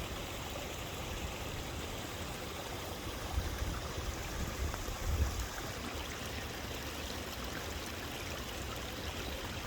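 Steady rush of storm runoff water flowing, with a few brief low thumps about three and five seconds in.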